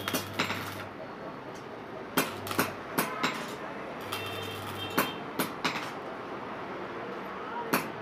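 Electric arc welder tacking a steel mesh grille frame: three short spells of steady electrical hum from the welder, each under a second, among sharp clicks and knocks of metal.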